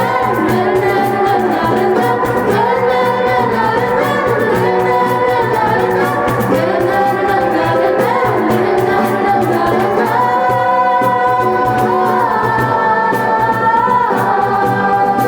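A school choir singing a song with held, gliding notes over a steady musical accompaniment.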